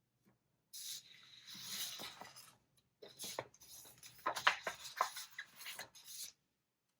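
Paper handling at a desk: a scratchy rustle, then a run of small clicks and scrapes as sticker sheets and planner pages are handled.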